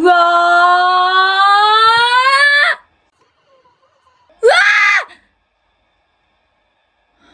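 A woman screaming: one long scream that climbs steadily in pitch for nearly three seconds, then, after a short pause, a second shorter cry that rises and falls.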